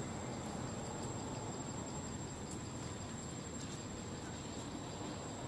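Steady high-pitched insect drone, typical of crickets, with one unbroken shrill tone over a low, even background rumble.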